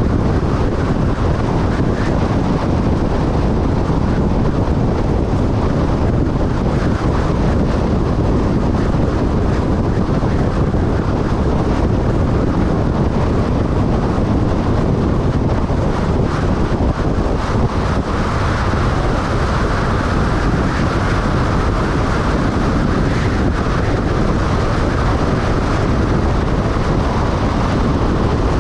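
Steady wind and road noise from a vehicle driving at highway speed, with wind buffeting the microphone. A higher hiss rises about two-thirds of the way through.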